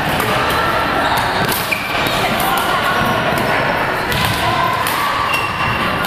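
Badminton rackets hitting shuttlecocks in several rallies at once, with scattered sharp thwacks, short high sneaker squeaks on the court floor, and chatter in a large hall.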